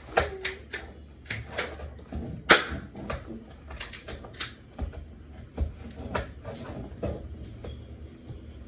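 Irregular clicks and knocks of plastic BB guns being handled, as a boy struggles to pull back and cock a spring BB pistol. One sharper, louder snap comes about two and a half seconds in.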